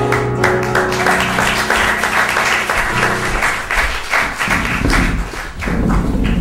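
Audience applauding over music that holds sustained notes, with the music dropping away after about three and a half seconds. The applause then cuts off abruptly at the end.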